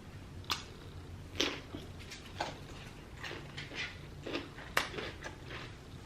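Close-miked chewing of buttered lobster tail: short wet mouth clicks and smacks, roughly one every half second to a second, over a steady low hum.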